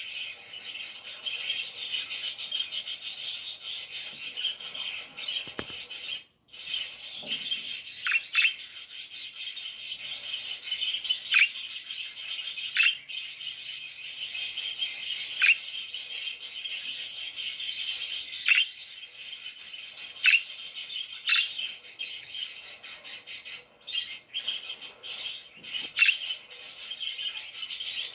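Parakeets chirping: a steady high, scratchy chatter with sharp, louder single chirps standing out every second or few.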